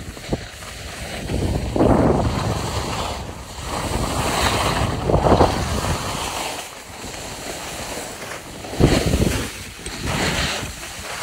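Skis sliding and scraping over packed snow, swelling in surges about every three seconds as the turns come and go, with wind buffeting the microphone.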